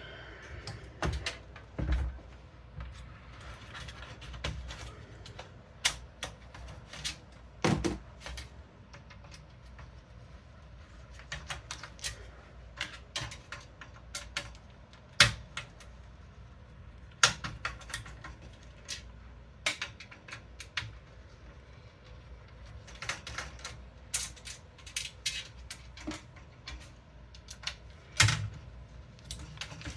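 Irregular small clicks, taps and knocks of a screwdriver and metal and plastic computer parts being handled while fitting a motherboard's screws into a PC case, with a couple of louder knocks about halfway through and near the end.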